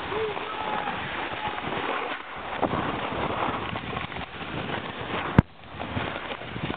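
Snowboard sliding down a packed-snow run: a steady rushing and scraping of the board on snow mixed with wind on the microphone. A single sharp knock comes about five seconds in.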